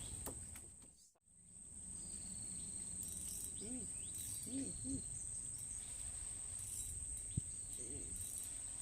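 Steady high-pitched insect drone with a brief dropout about a second in; a few short, low, arched calls come in pairs around the middle and again near the end, and there is a single sharp click late on.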